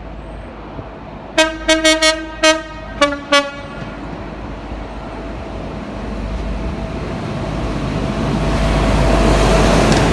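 A train's two-tone horn sounded in a quick run of short toots: five on the higher note, then two on the lower. Then the train's rumble grows steadily louder as it approaches.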